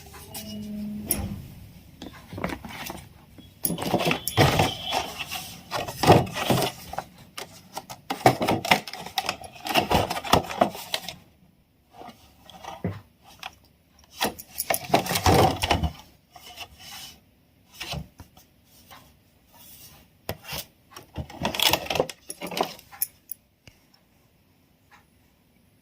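Crystal slime being squeezed and worked by hand, giving several bursts of crackling, clicking pops with short pauses between them.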